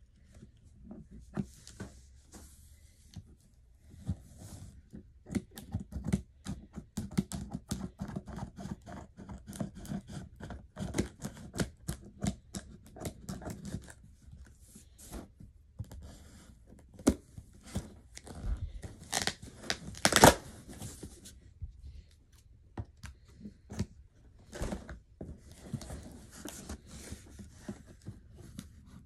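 Scissors cutting and slitting packing tape on a cardboard box, with tape tearing and cardboard crinkling in a long run of short clicks and rasps. The loudest sound is a longer rip about two-thirds of the way through.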